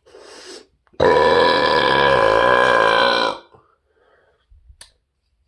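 A man's long, deep, forced burp, held steadily for a little over two seconds after a short breath in; a very loud one, read at 113.4 on his loudness meter.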